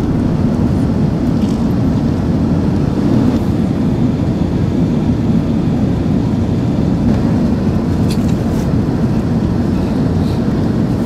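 Airbus A380 cabin noise during descent: the steady low roar of the engines and airflow heard through the fuselage from a window seat.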